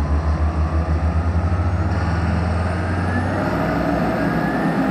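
Twin Mercury Diesel 6.7-litre 550 hp straight-six engines accelerating hard as the throttles are opened to bring the boat onto the plane. A deep throb quickens over the first three seconds while a whine rises steadily in pitch.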